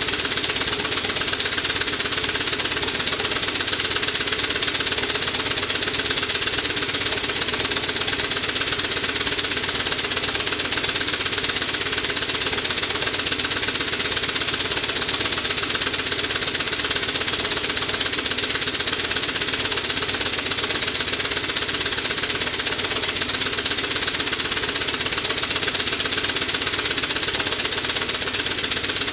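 Stuart 4A steam engine running steadily under load, its exhaust steam hissing out in a rapid, even chuff as it drives a generator.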